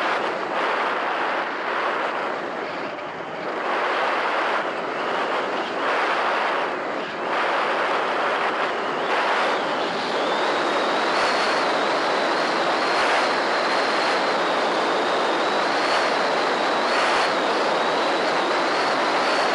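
Onboard audio of an EasyGlider Pro electric RC glider in flight: a steady rush of air over the airframe and camera, dipping briefly twice in the first half. A thin high whine joins about halfway through.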